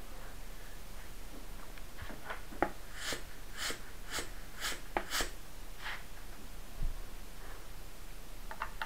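Giyo GF04 floor pump being worked by hand: about five quick strokes roughly half a second apart, each pushing out a short hiss of air. A few clicks and a low knock from handling the pump are heard around them.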